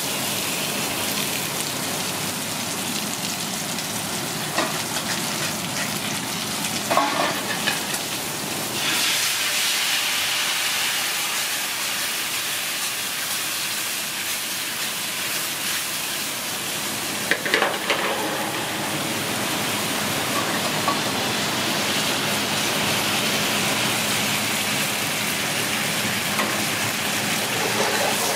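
Mushrooms sizzling in a stainless steel sauté pan over a gas burner. About nine seconds in the sizzle grows brighter and hissier as the mushrooms cook down in bubbling liquid, and a couple of short clinks sound twice.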